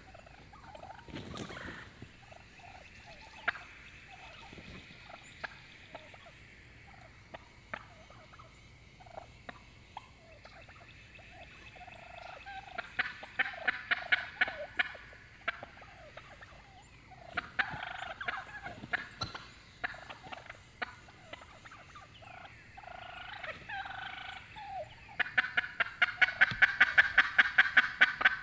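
Turkey calling: three runs of rapid, evenly repeated notes, one near the middle, one about two-thirds in, and a longer, louder run near the end, with scattered short calls between them.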